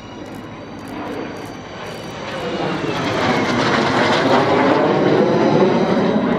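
Fouga CM.170 Magister jet trainer's twin Turbomeca Marboré turbojets passing close overhead: a jet whoosh that builds from about two seconds in and stays loud, its pitch sweeping as the aircraft goes by.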